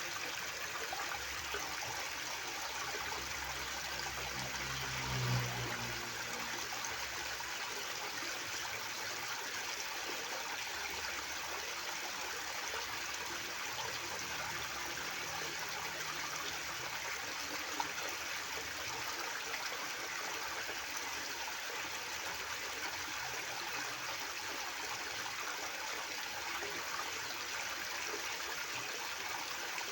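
River water flowing with a steady, even rush. A brief low rumble swells about five seconds in.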